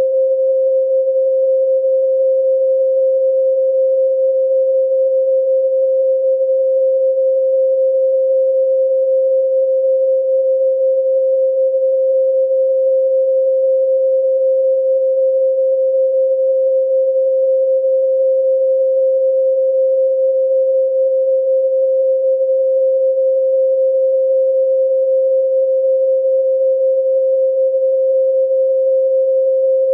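A single steady pure sine tone at 528 Hz, held unchanging throughout.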